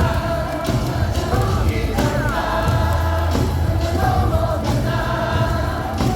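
Baseball crowd singing a cheer song in unison along with loud music over the stadium speakers.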